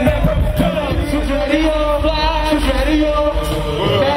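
Live hip hop music played loud over a PA: a heavy, steady bass beat with a man's voice rapping on the mic over it.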